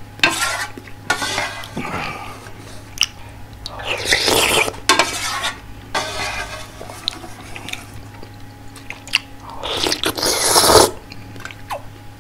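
Slurping spicy soft-tofu ramen broth close to the microphone: four long slurps, the last about ten seconds in the loudest, with chewing and short clinks of a spoon against the aluminium ramen pot in between.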